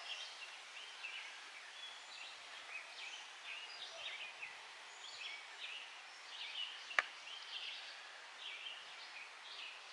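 Faint outdoor background of birds chirping on and off, with a single sharp click about seven seconds in.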